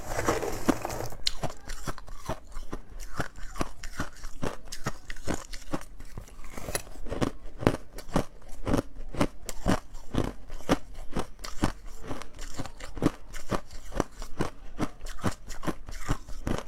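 Ice being chewed close to the microphone: a steady run of sharp crunches, about three a second.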